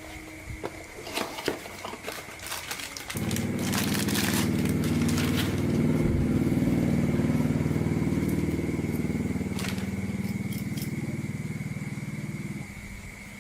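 Old motorbike engine: a few clicks and knocks, then the engine catches about three seconds in and runs steadily for around nine seconds before cutting off abruptly near the end.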